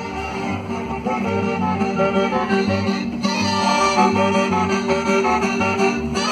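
Background music with a steady bass beat and melodic lines above it.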